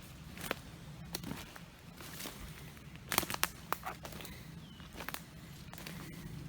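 Footsteps crunching through undergrowth, with scattered snaps and a cluster of sharper cracks about three seconds in.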